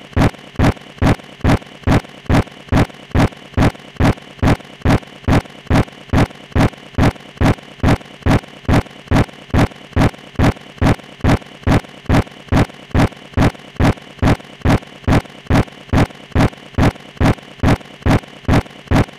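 A steady, evenly spaced thumping beat, a little over two deep thumps a second, over a constant hiss.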